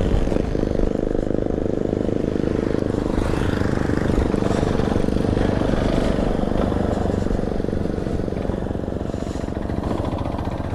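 Yamaha Ténéré motorcycle engine running steadily while being ridden, with a rushing noise over it.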